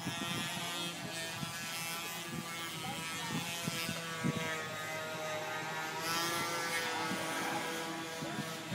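A small engine or motor running steadily, its hum wavering slightly in pitch, with a few short knocks mixed in.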